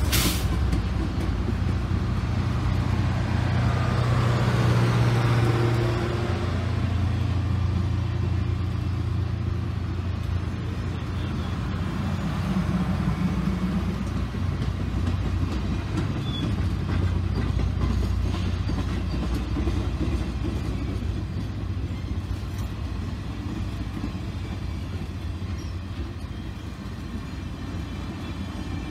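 Union Pacific passenger train cars rolling past on the rails: a steady low rumble of wheels and running gear, slowly fading toward the end. A brief sharp noise at the very start.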